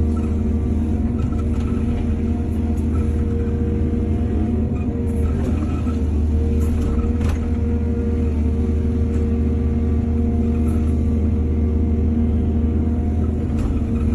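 Excavator's diesel engine running steadily, a deep even hum with a few faint ticks scattered through it.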